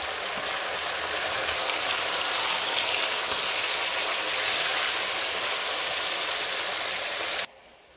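Cubed pork sizzling in hot oil in a roasting pot, a steady hiss that cuts off suddenly near the end.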